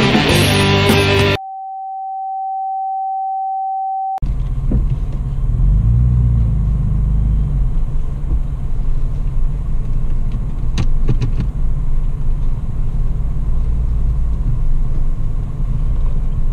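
Rock music cuts off about a second in and is followed by a steady pure beep tone for about three seconds. Then comes the cabin sound of a Toyota FJ Cruiser's V6 engine and drivetrain rumbling steadily as it crawls along a rough dirt trail, with a few sharp clicks and rattles around the middle.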